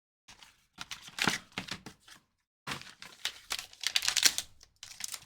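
Plastic packaging crinkling and tearing in quick irregular bursts as the next item in the trading card case is unwrapped.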